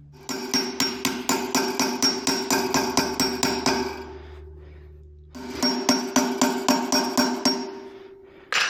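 A hammer tapping rapidly on metal, about five ringing strikes a second, in two runs with a pause between them. It is driving new dust seals into a motorcycle front wheel hub.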